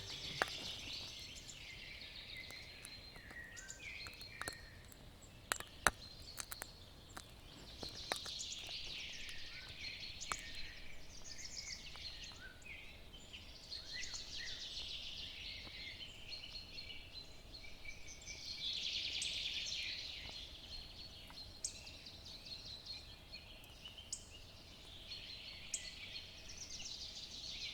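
Outdoor ambience of birds chirping in recurring bouts, with a few short sharp clicks, the loudest about six seconds in.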